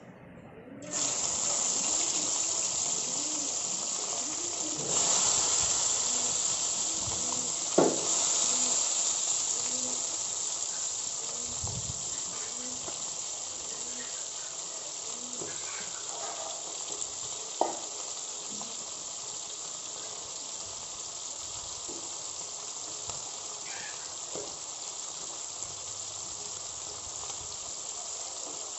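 Small tangra catfish frying in hot oil in a kadai, a steady sizzle. It starts suddenly about a second in, grows louder around five seconds, then slowly fades, with two sharp pops along the way.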